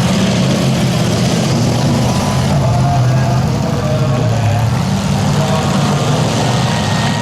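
Demolition derby cars' engines running together in a steady, loud drone, with no crash impacts standing out.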